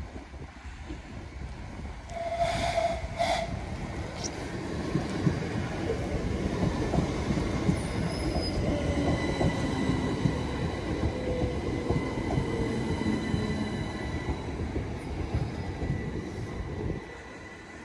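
Southern Class 377 electric multiple unit pulling in and braking to a stop, its wheels rumbling on the rails, with a short two-part tone about two seconds in. Partway through, the motor whine falls in pitch as the train slows, and a thin, steady high whistle sounds for several seconds before the train comes to rest.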